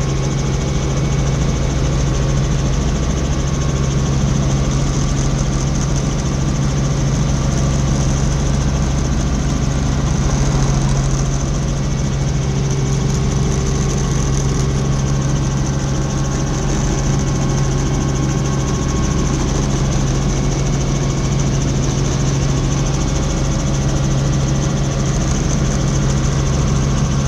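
Robinson R44 Clipper II helicopter in cruise flight, heard from inside the cabin: its six-cylinder piston engine and rotors make a loud, steady drone with a strong low hum and airflow noise over the canopy, unchanging throughout.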